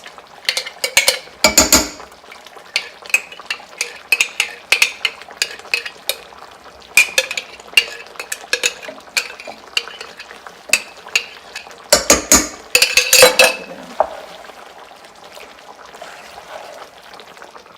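A utensil stirring pasta with sauce in a pan, with many sharp clinks against the pan and two louder spells of scraping, about a second and a half in and again around twelve seconds in; it is quieter near the end.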